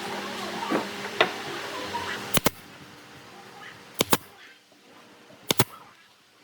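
Three sharp double clicks or taps, each a quick pair of hard knocks, about a second and a half apart, over a faint steady hiss that fades out in the second half.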